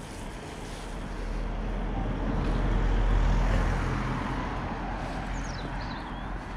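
A road vehicle driving past, its engine rumble and road noise swelling to a peak about three seconds in and then fading away.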